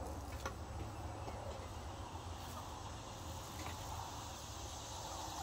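Faint dry buzzing of a western rat snake vibrating its tail in the coop's straw bedding. This is a defensive display that imitates a rattlesnake's rattle.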